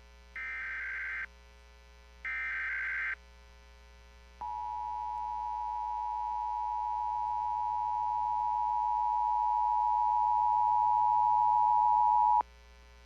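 Emergency Alert System required monthly test on the radio: the last two bursts of the SAME digital header, each under a second long and about two seconds apart, then the two-tone EAS attention signal (853 and 960 Hz) held for about eight seconds, slowly growing louder before it cuts off abruptly. A faint mains hum runs underneath.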